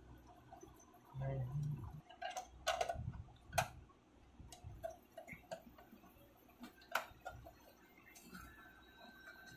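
Irregular sharp clicks and light knocks of small hard objects being handled, a few louder ones standing out about three and a half and seven seconds in.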